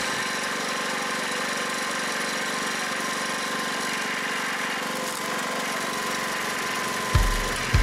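Small gas engine of a hydraulic log splitter running steadily at idle. Two deep thumps come in near the end.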